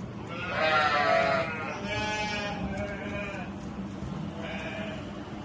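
Goats bleating: four wavering bleats, the first and loudest about half a second in, then three shorter ones.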